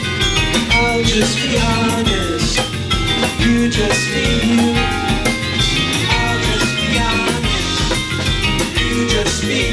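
A live band playing: drum kit keeping a steady beat under bass and held melody notes.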